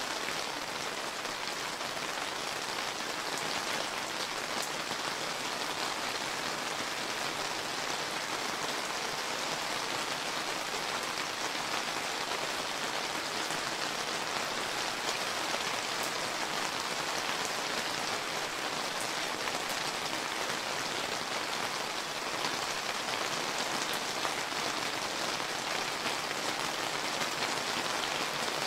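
Steady rain falling and pattering on surfaces, a continuous even hiss with fine drop ticks throughout.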